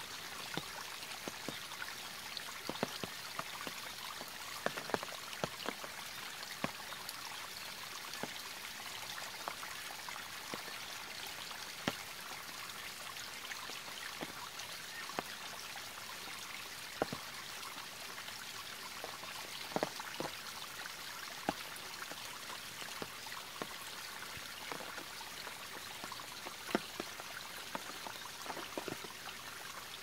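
Small mountain stream spilling over a low stone ledge onto rocks: a steady trickling splash with scattered, irregular plinks of single drops.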